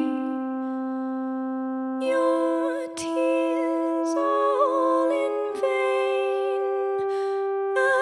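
Music: a woman's wordless vocal melody with vibrato over sustained chords on a Roland FA-08 keyboard. A held low note carries the first two seconds, then new chords come in about two seconds in and change a few times.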